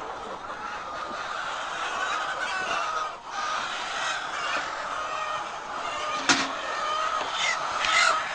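Many laying hens clucking and calling over one another, a dense, steady chatter. A single sharp knock stands out about six seconds in.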